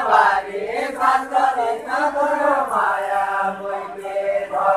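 Men singing a deuda folk song without instruments: long drawn-out chanted phrases whose pitch slides up and down between held notes.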